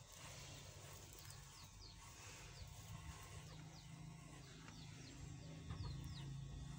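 Corded electric hair clipper running with a steady low hum as it cuts hair, faint under the sound of birds repeatedly giving short, high, falling chirps.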